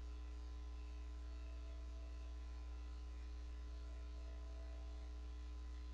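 Steady low electrical mains hum, with no other sound.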